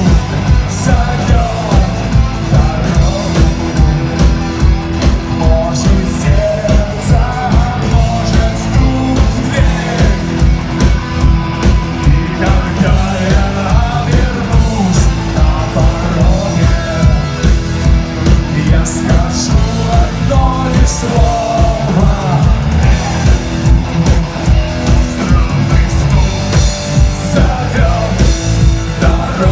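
Live rock band playing an instrumental passage: a lead guitar melody over bass and a steady, driving drum beat.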